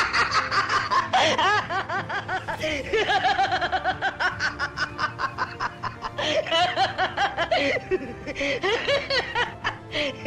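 Long mocking laughter from one person, a fast run of short 'ha' bursts, with music underneath.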